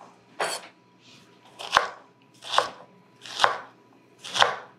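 Chef's knife chopping quartered Persian cucumbers on a wooden cutting board: five evenly spaced strokes, about one a second, each a crisp crunch through the cucumber ending in a knock on the board.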